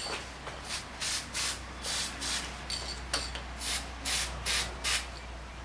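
Aerosol can of anti-squeal disc brake spray hissing in about a dozen short squirts, roughly two a second, onto the metal backs of brake pads.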